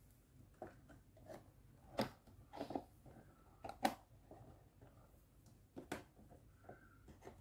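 Small plastic cabinet doors of a toy kitchen being swung shut by hand: a series of light clicks and taps, the sharpest about two seconds in and near four seconds, with a few more near six seconds.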